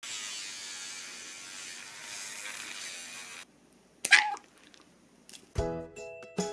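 Electric pet nail grinder buzzing against a dog's claws for about three and a half seconds, then a short sharp high yelp from the dog that falls in pitch. Music of struck notes begins near the end.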